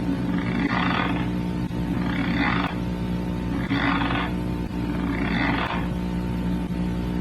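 A sleeping person grinding their teeth (nocturnal bruxism): four rasping grinds, each about half a second long, coming regularly about every second and a half, over a steady electrical hum.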